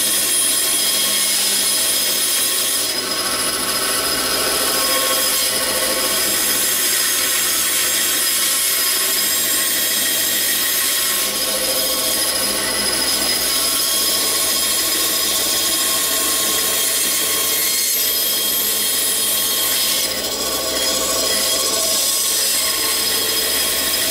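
Band saw running and cutting a curved outline through a thick wooden block: a steady, high-pitched whine with the hiss of the blade in the wood.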